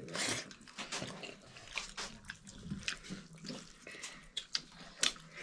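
Water splashing and trickling, with scattered small clicks and clinks.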